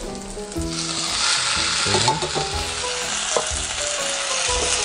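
Canned whole tomatoes poured into a pot of onion, garlic and celery frying in hot olive oil. The pan sizzles, and the sizzle grows sharply louder about a second in as the tomatoes land, then keeps going.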